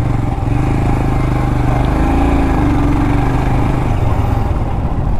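Royal Enfield Scram 411's 411 cc single-cylinder engine running steadily under way on a rough road, its note rising and easing back a little midway.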